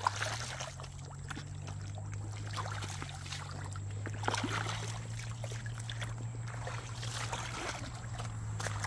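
Creek water splashing and sloshing irregularly, over a steady low hum.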